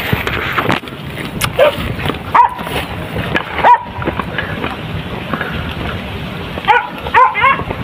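Hunting dogs yelping on the chase: single high yelps about two and a half and four seconds in, then a quick run of several yelps near the end.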